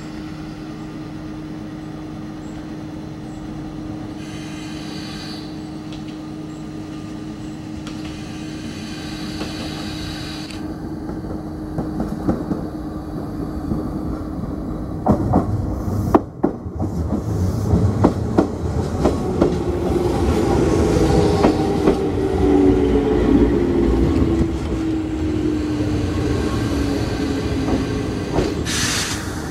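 Enshu Railway 1000 series electric train pulling into the station: a steady hum at first, then wheels clicking over rail joints as it draws near, a whine falling in pitch as it slows, and a short hiss near the end.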